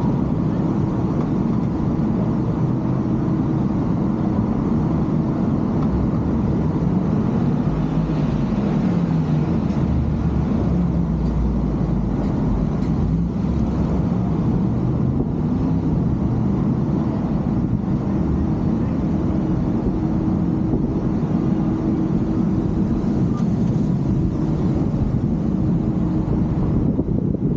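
Steady low road noise of a car driving in city traffic, with an engine note that rises and falls several times in the middle as it speeds up and slows.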